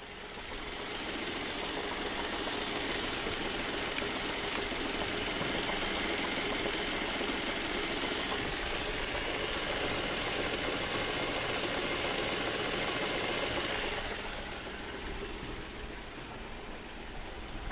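Running 2011 Mazda 3 2.0 L four-cylinder with a fast, steady knocking from its air-conditioning compressor. It gets quieter about fourteen seconds in.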